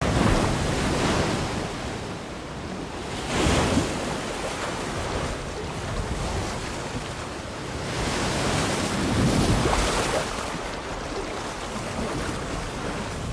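Ocean surf washing and breaking on a beach, with wind. The rush swells as waves come in, most sharply about three and a half seconds in and again around nine to ten seconds.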